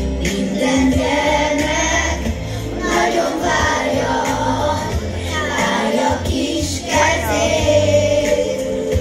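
A group of children singing together over recorded instrumental backing music played through loudspeakers, with a prominent bass line.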